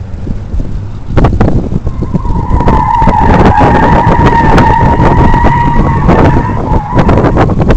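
Tires of a 1979 Pontiac Trans Am WS6 squealing in one long, steady squeal of about five seconds as the car corners hard through an autocross course. The car's stock 400 V8 runs underneath.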